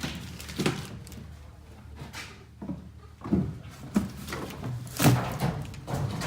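A handful of irregular knocks and bangs, the loudest about five seconds in, over a steady low hum.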